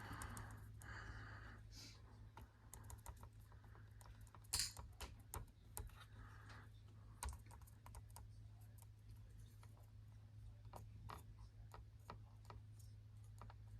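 Soft, irregular clicks of buttons being pressed on a wall thermostat's keypad while the date is entered, over a low steady hum.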